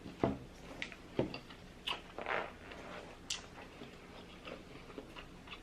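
A person chewing a mouthful of buttered lobster tail close to the microphone, with irregular wet smacks and clicks of the mouth.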